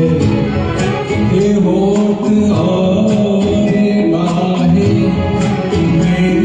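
Karaoke backing track playing an instrumental interlude: held melodic lines over a steady percussive beat.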